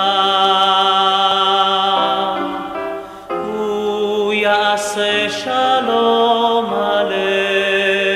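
Background music of slow chant-like singing: voices holding long notes with a slight waver, moving to a new chord every couple of seconds, with a short drop in level about three seconds in.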